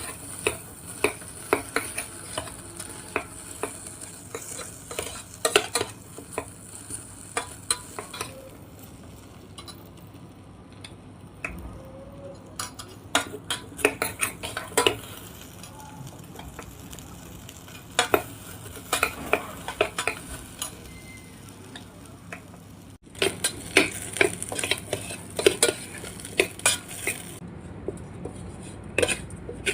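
A utensil stirring okra frying in oil inside an electric kettle: repeated short scrapes and knocks of metal on the kettle, over a faint steady sizzle.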